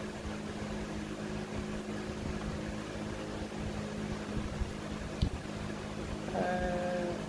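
Steady low electrical hum of a running appliance over faint room noise, with a single sharp click about five seconds in and a brief steady tone near the end.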